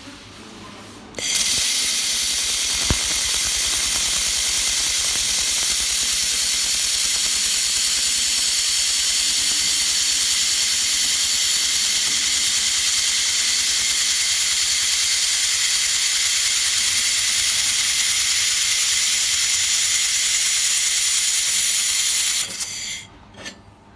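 Welding machine working on stainless steel wire: a steady, loud hiss that starts abruptly about a second in and holds for about twenty seconds, then stops with a few short spurts near the end.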